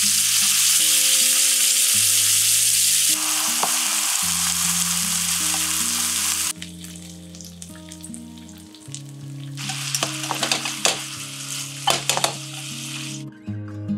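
Food sizzling in oil in a frying pan: loud and steady for the first half while Spanish mackerel pieces fry. It drops to a quieter crackle while minced meat and sliced mushrooms cook, then sizzles hard again with sharp clicks as liver and hearts sauté in sauce. Soft background music plays underneath.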